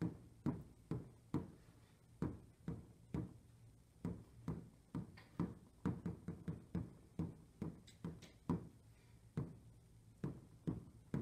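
Finger taps on a display screen tapping out a rhythm: mostly an even beat of about two taps a second, with quicker runs of taps in between.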